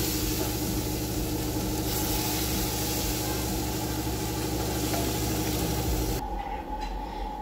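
Steady motor-like hum under a broad hiss, which cuts off suddenly about six seconds in, leaving a quieter room.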